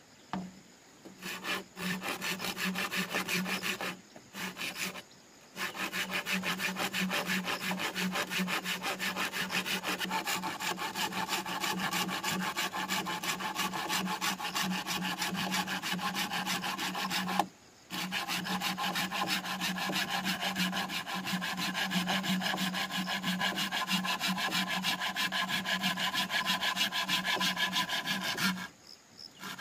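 Hand saw cutting through bamboo in steady, rapid back-and-forth strokes, stopping briefly a few times.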